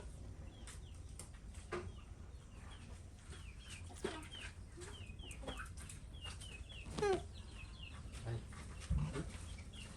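Birds calling, likely chickens: repeated short, high, falling chirps, with a louder falling call about seven seconds in.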